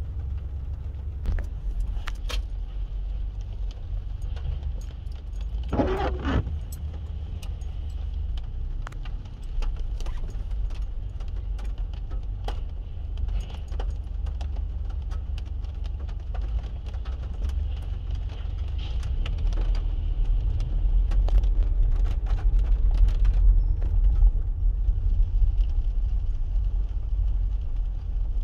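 Low steady rumble of a car driving, heard from inside the cabin, with many scattered light clicks and jingles. The rumble swells for a few seconds past the two-thirds mark.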